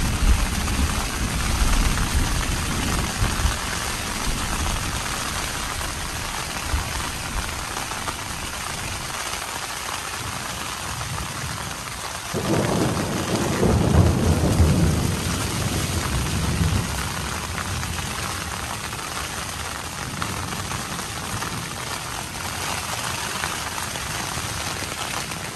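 Storm wind and rain beating on a tent, a steady rushing roar from outside the fabric. About halfway through a sudden, louder surge comes and slowly dies away.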